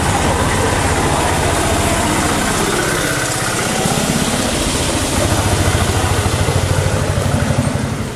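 Small engine of an auto-rickshaw (tuk-tuk) running close by with a rapid putter, growing louder in the second half and dropping away near the end.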